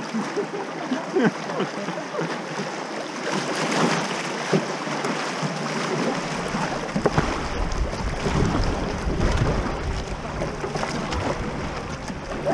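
Rushing water of a shallow river riffle around a kayak, with paddle strokes splashing now and then. About halfway through, a low rumble of wind on the microphone joins in.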